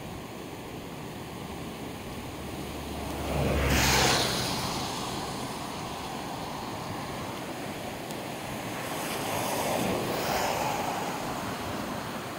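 The Durance in flood: a steady rush of churning, debris-laden floodwater below a bridge. Two louder swells of noise rise and fall over it, the first about four seconds in with a low rumble, the second near ten seconds.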